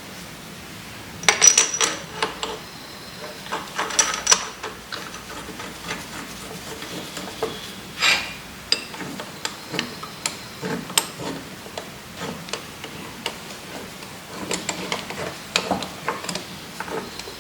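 Steel parts and hand tools clinking and clicking against a Kurt milling vise as it is reassembled, in scattered short runs of sharp, ringing clicks.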